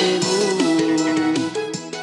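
Music near the end of a song: a melodic line with sliding notes over sustained chords, fading out in the second half.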